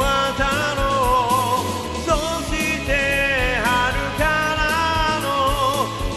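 Rock band music in an instrumental passage: drums and bass under a lead melody line that bends and wavers in pitch.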